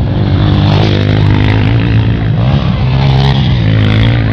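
Motocross motorcycle engine running hard, its pitch rising and falling as the throttle is worked.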